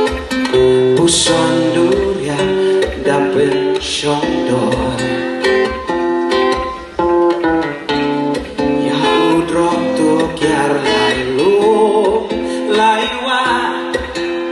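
Music led by a strummed acoustic guitar, with a voice singing over it.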